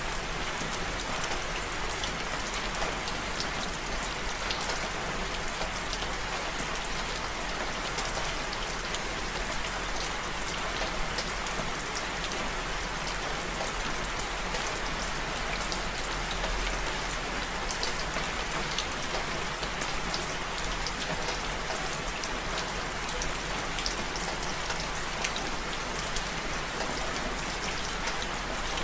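Steady rain falling, an even hiss dotted with many small taps of individual drops striking a surface.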